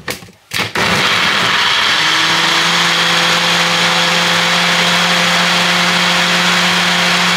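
Single-serve bullet-style blender running, blending a fruit and protein-powder smoothie. A couple of knocks as the cup is set on the motor base, then the motor starts about a second in and runs loud and steady, its hum settling to an even pitch about two seconds in.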